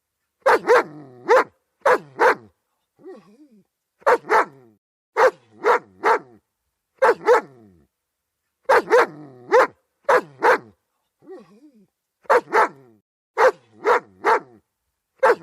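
German Shepherd barking over and over in quick runs of two or three loud barks, with short pauses between runs. There are a couple of softer, quieter calls in the pauses.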